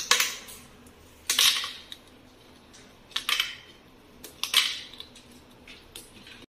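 Ice cubes cracking loose from a plastic ice-cube tray and clattering into a plastic blender jar, in four sharp bursts spread over a few seconds.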